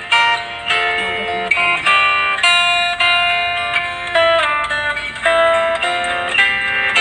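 Background music: a melody of plucked guitar-like notes, each struck sharply and then fading.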